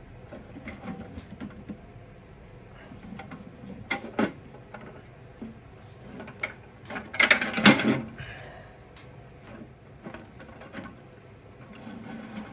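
Hand assembly of an overhead saw-blade crown guard: scattered clicks and knocks of parts being handled and fitted, with a louder clatter about seven to eight seconds in.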